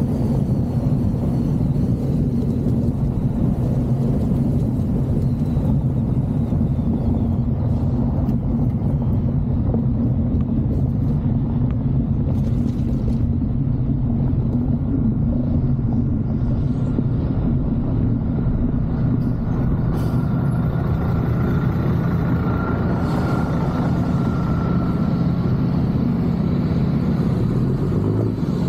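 A vehicle driving over a gravel and dirt road: the steady low rumble of its engine and tyres.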